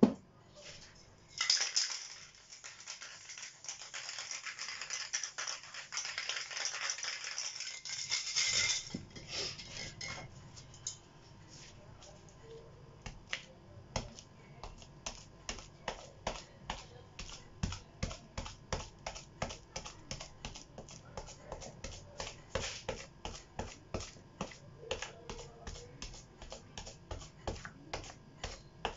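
An aerosol spray paint can hissing for about seven seconds. Then a steady run of quick taps, about two to three a second, as a paint-loaded wad is dabbed repeatedly against the painting.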